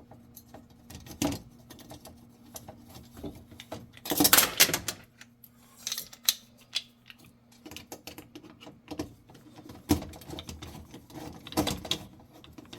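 Irregular light clicks and clatter of small metal hardware being handled as the old oven igniter's mounting nut and screws are worked loose by hand, with a louder burst of rattling about four seconds in.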